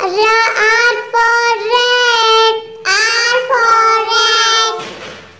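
A child's high voice singing two short phrases with a brief break between them, holding each note steadily.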